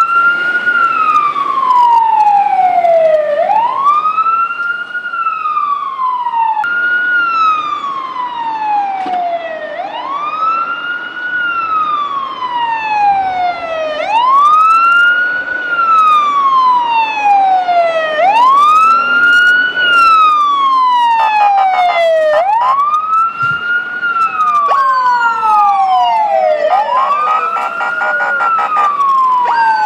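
Fire truck siren wailing: each cycle sweeps quickly up to a high pitch, then slides slowly back down, repeating about every three and a half seconds.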